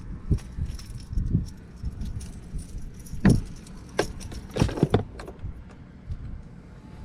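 Irregular rattling, clicking and knocking handling noise, with dull thumps underneath and the loudest knocks about three and five seconds in.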